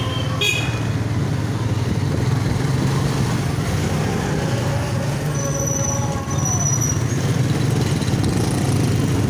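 Motorcycle engine running steadily under way, with road and street traffic noise around it. A few brief high-pitched tones sound about half a second in and again around the middle.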